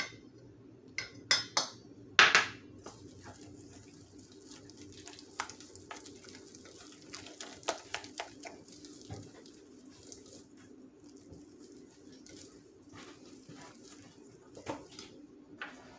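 A mixing utensil scraping and knocking against a stainless steel bowl while stirring egg yolk into a thick, heavy dough. A few sharper knocks come in the first couple of seconds, the loudest about two seconds in, then softer scraping and small clicks of steady stirring.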